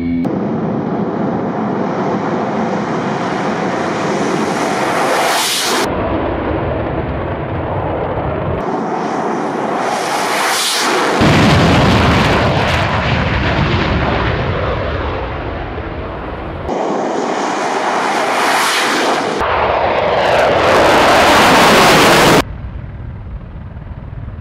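Military aircraft engine noise in a run of separate clips joined by abrupt cuts: jets running loud during low passes and a fighter takeoff. Several clips swell to a peak as the aircraft nears.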